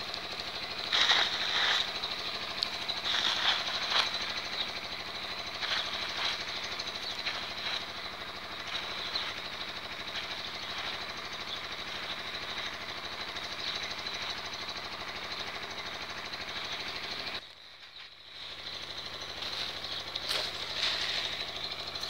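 A small engine runs steadily with a fast, even pulse and a high whine on top. A few brief scratchy rustles come in the first six seconds, and the sound drops out for about a second near the end.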